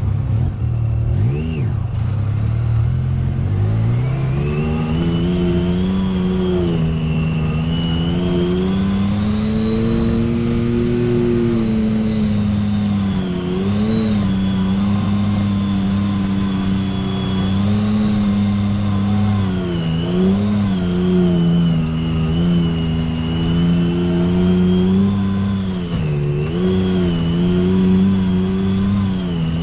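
Side-by-side UTV engine running under throttle; its revs climb a few seconds in, then hold with several brief dips and recoveries.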